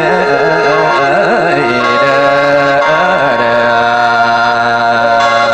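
Mor lam singing: a drawn-out, wavering vocal phrase over sustained instrumental chords, settling into a long held note about three seconds in.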